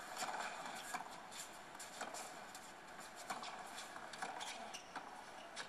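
Tennis broadcast playing from a television during a rally: irregular light clicks and taps over a steady low hiss.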